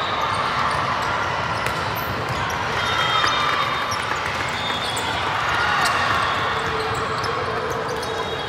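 Indoor volleyball rally in a large hall: a few sharp hits of the ball over a steady, echoing hall din.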